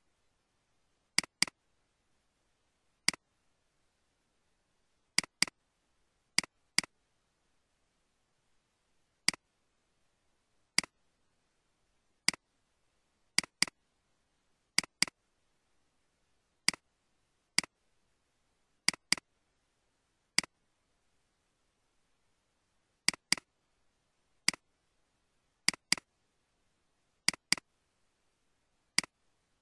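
Computer mouse clicks, many of them quick double-clicks, coming every second or two with silence in between.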